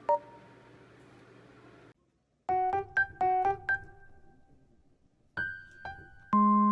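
Playful background music: a bright electric-piano melody in short, bouncy staccato notes, broken by a brief full stop about two seconds in before the notes pick up again.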